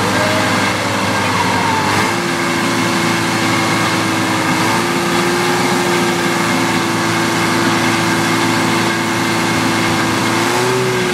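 Detroit Diesel 4-71 two-stroke diesel engine in a 1952 Unit crawler crane, running steadily. Its pitch steps up about two seconds in as the engine speeds up, and rises briefly once more near the end.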